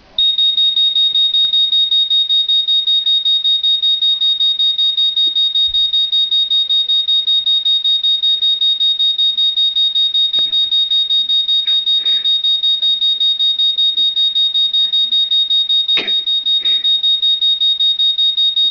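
Novelty toy grenade beeping: a loud, high-pitched electronic beep repeating rapidly and evenly, switching on abruptly. A sharp knock sounds near the end.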